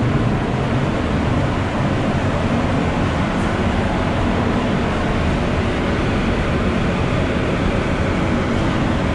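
Paint spray booth's ventilation fans running: a steady, loud rush of moving air.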